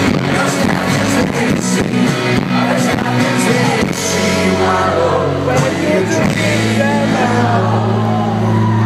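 Indie rock band playing live through a festival PA, heard through a phone's microphone from the crowd: drums, electric guitars and bass with singing. About six seconds in the drum hits stop and a held chord rings on.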